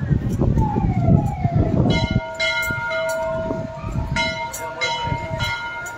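A large metal temple bell is struck several times from about two seconds in, each stroke ringing on in steady tones. In the first two seconds a low rumble is loudest.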